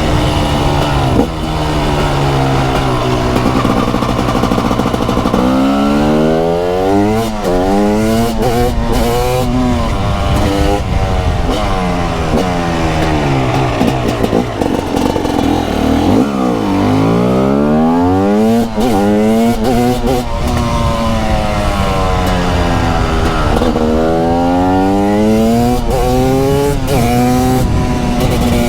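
TM SMR 300 supermoto's 300cc single-cylinder two-stroke engine pulling hard through the gears, its pitch climbing in short steps between quick upshifts, then winding down on the throttle off. It does this several times over, accelerating out of bends and slowing into them.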